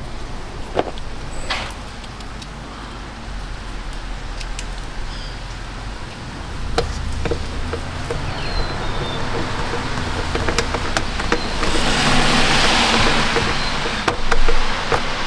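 Rear power-window regulator motor of a GMC Envoy running with a steady low hum, rising in the second half, with a rush of noise near the end as the glass travels. Sharp plastic clicks and taps of the door trim panel being pressed back onto its clips are heard throughout.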